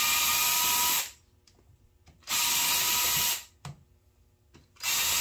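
Cordless impact wrench hammering in three bursts of about a second each, loosening the bolts on a two-stroke ATV engine's crankcase.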